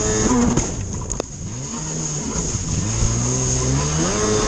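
Stand-up racing jet ski's two-stroke engine at high revs. It eases off a little over a second in, the pitch and loudness dropping, then revs back up over rough water.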